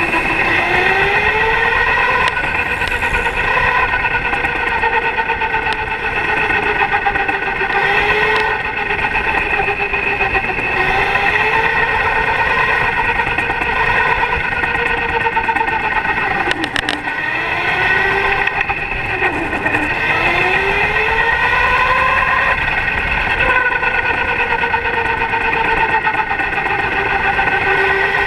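Electric go-kart's motor whining at speed. Its pitch drops and climbs back several times as the kart slows and accelerates, over a steadier high whine.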